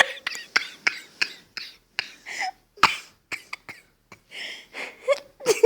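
A person hiccuping over and over: a rapid, irregular run of short, sharp catches in the throat, with no let-up in the hiccups.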